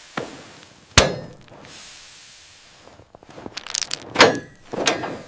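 Hard knocks and clinks: one sharp, loud crack about a second in, then a quick cluster of clinking and knocking near the end.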